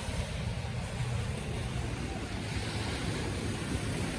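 Surf washing on a sandy beach, with a steady low rumble of wind on the microphone.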